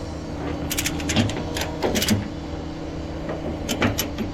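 Sharp metal clicks and clanks in several short clusters from tie-down straps and hooks being handled, over a steady engine hum.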